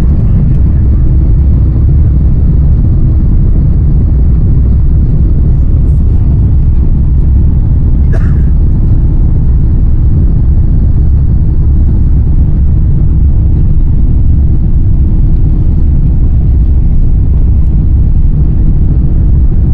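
Steady, loud low rumble of an Airbus A350-900's Rolls-Royce Trent XWB engines and airflow, heard from inside the passenger cabin as the aircraft gets under way.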